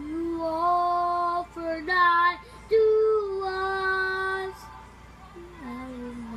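A child singing a slow hymn melody in long held notes, softer over the last second or two.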